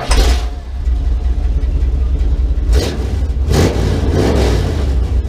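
An engine running with a heavy, steady low rumble and revving, with short rushes of noise about three seconds in.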